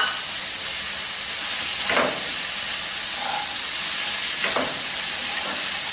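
Mixed vegetables (mushrooms, peas, beans, carrot and onion) sizzling in a little oil and ghee in a nonstick pan as they are stirred with a plastic spatula. There is a steady hiss, with two brief louder spatula strokes, about two seconds in and again past four seconds.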